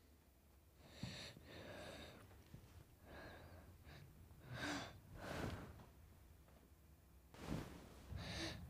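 A child's quiet, breathy gasps and exhalations, several separate breaths with the loudest around five seconds in and near the end.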